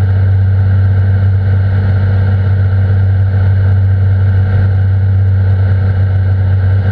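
Cirrus SR22's piston engine and propeller droning steadily as heard inside the cabin, a deep even hum with a strong low tone, on final approach.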